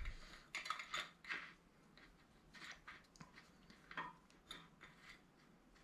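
Light metallic clinks and rattles as the steel parts of a cam bearing installer tool are handled and fitted together, a scattering of small taps with no hammer blows.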